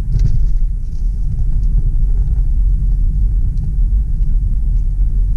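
Steady low rumble inside the cabin of a 2007 Mercedes-Benz ML320 CDI turbo diesel SUV on the move: engine and road noise while driving.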